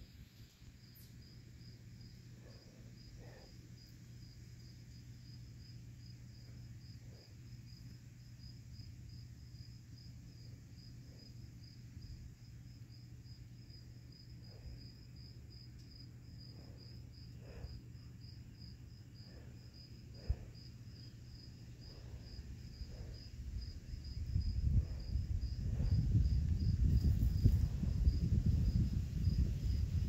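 A cricket chirping in a steady, even run of high chirps. About 24 seconds in, a low rumbling noise rises and becomes the loudest sound.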